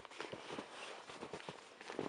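Footsteps crunching through fresh snow, with many small irregular crackles as each step packs the snow.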